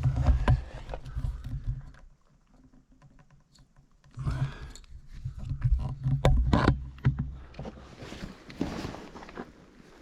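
A person sliding feet first down into a lava tube: clothing and gear scraping and rubbing on rough rock, with scattered knocks and clicks. It goes quiet for a couple of seconds about two seconds in, then the scraping and knocking resume.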